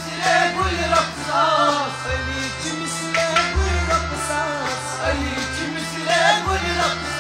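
Kashmiri devotional song performed live: a male voice singing a wavering, ornamented melody over musical accompaniment with a stepping bass line and percussion.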